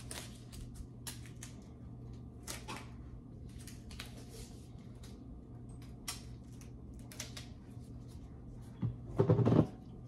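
Gloved hands handling IV supplies and plastic packaging: short intermittent rustles and crinkles every second or so over a steady low hum, with one louder rustle near the end.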